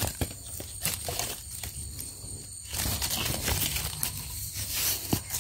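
Leaf litter, vines and twigs rustling and crackling close to the microphone as they are moved about, with a few sharp clicks and snaps.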